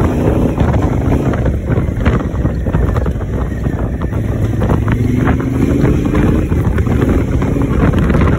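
Wind buffeting the microphone over the steady running of a Honda Africa Twin motorcycle's parallel-twin engine while riding on a dirt track.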